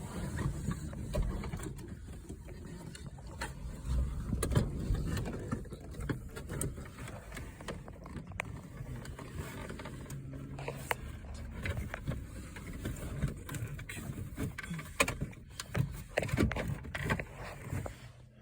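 Irregular knocks, clicks and scrapes of a plastic car center console being handled and worked into place.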